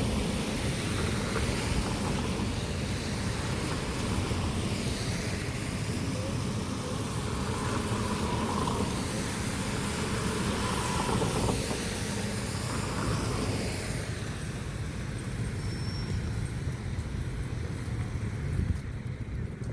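Road traffic passing: vehicle engines and tyre noise, with engine pitches rising and falling through the middle.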